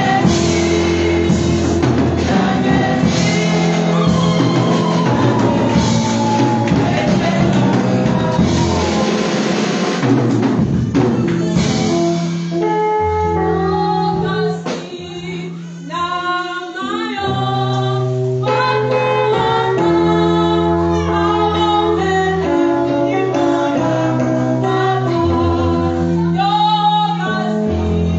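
A women's gospel choir sings with electric keyboard accompaniment. The backing is busy for about the first third, then thins to held keyboard chords under the voices, with a short drop in loudness about halfway.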